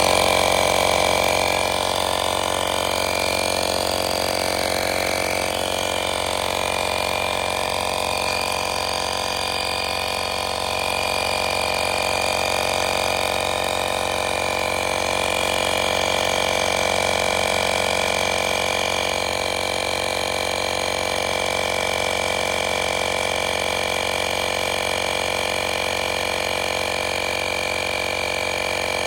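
AstroAI 12V portable tire inflator running steadily with a motor hum and a constant high whine, pumping a spare tire up toward its preset 60 psi, where it cuts off by itself.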